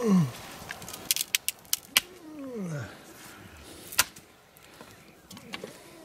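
Dry sticks cracking as firewood is snapped by hand: a quick run of sharp snaps between one and two seconds in and one more about four seconds in. Two low calls that fall in pitch come at the start and about two and a half seconds in.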